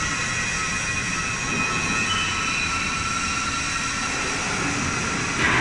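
Hydraulic press running idle: a steady motor-and-pump hum with several high whining tones over it. A brief louder noise comes near the end.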